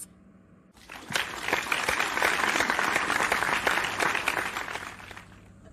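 Audience applauding: the clapping starts about a second in, builds, and fades out near the end.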